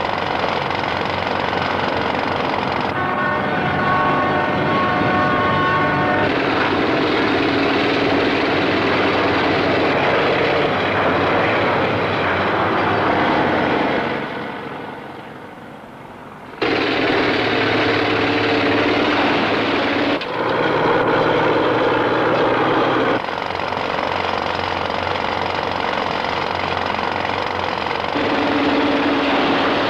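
Heavy rock-drilling and earthmoving machinery running: a steady, loud machine noise with some whining tones. The sound changes abruptly several times and dips briefly about halfway through.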